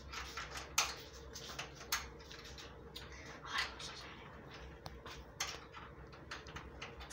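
Scattered light clicks and knocks of metal hardware being handled while bolts and nuts are fitted by hand to mount a bench vise, with a faint steady hum underneath.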